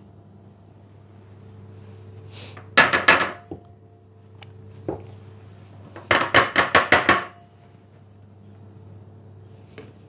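Metal wire cooling rack tapped against a wooden worktop in a quick run of about eight knocks, shaking the excess mirror glaze off a freshly glazed dessert. A shorter cluster of knocks comes about three seconds in, over a low steady hum.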